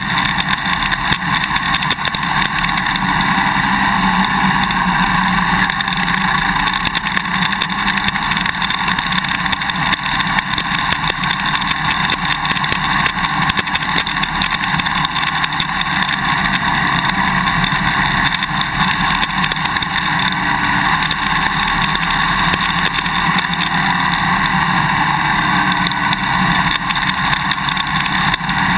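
Constant rapid clicking and rattling of a GoPro Hero 2's quick-release buckle vibrating in its mounting bracket, heard through the camera's housing on a dirt bike's swing arm, over the steady running of the Suzuki DRZ400's single-cylinder four-stroke engine. The clicking comes from the buckle sitting loose in the bracket, without the vibration plug or tape packing fitted.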